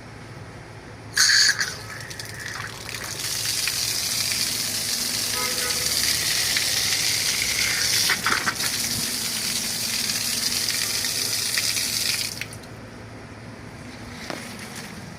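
Water gushing from a tap in a house plumbing line, steady for about ten seconds, and then cut off. A short loud burst comes about a second in.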